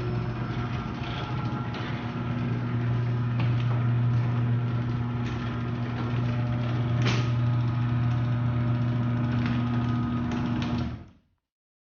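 Liftmaster half-horsepower chain-drive garage door opener running with a newly installed gear kit: a steady motor hum with scattered clicks. It cuts off suddenly about eleven seconds in.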